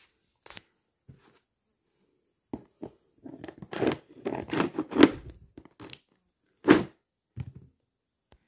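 Packing tape on a cardboard carton being slit with a small blade and pulled apart: a run of short, irregular rips and crackles, loudest about four to five seconds in and again near seven seconds.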